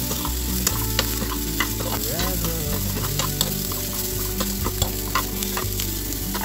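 Mushrooms, baby corn and onion sizzling in butter in a frying pan while being stirred with a steel spoon. The spoon clicks and scrapes against the pan many times over a steady frying hiss.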